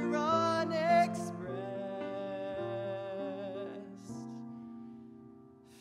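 A male singer holds a note with vibrato over soft piano accompaniment in a slow, tender ballad. The sound then settles into sustained chords and fades almost to silence near the end.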